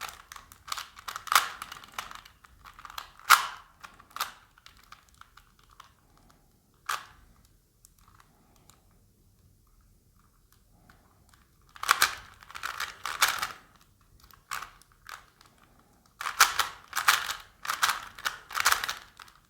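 Rubik's Cube being turned by hand: flurries of rapid plastic clicking as the layers are twisted during a timed solve, broken by a quiet pause of several seconds in the middle.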